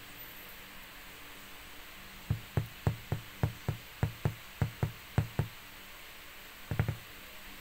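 A run of about a dozen dull knocks at roughly four a second, then a quick double knock near the end, over a faint steady hiss.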